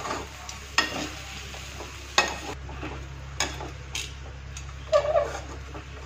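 A perforated metal spatula scraping and clinking against a metal kadhai as puffed-rice poha is stirred and tossed, with a sharp knock about once a second.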